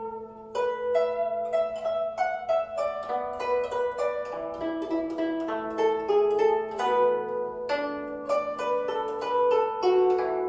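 Guzheng (Chinese zither) playing a melody: a quick run of plucked notes that ring and fade over a held low note, with a few bent, wavering notes in the middle.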